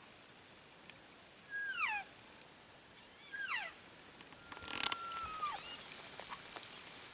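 Cow elk mewing: two short calls that slide downward, then a longer, more level call that drops at its end.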